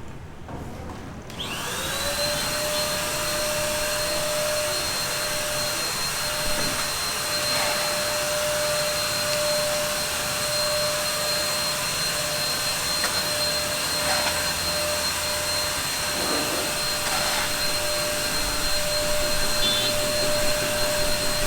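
A small electric motor spins up with a quick rise in pitch about a second in, then runs steadily with a high whine over a rushing hiss.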